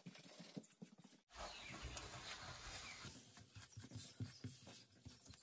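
Faint scraping of a spatula stirring flour into butter and onions in a skillet, cooking a roux into a paste, in short irregular strokes.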